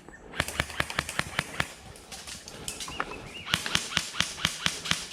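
Airsoft gun fired as rapid single shots, sharp clicks about five a second, in two strings with a pause of about two seconds between.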